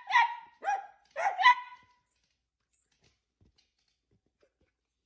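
A dog barking a few short, high-pitched barks in quick succession, then falling quiet.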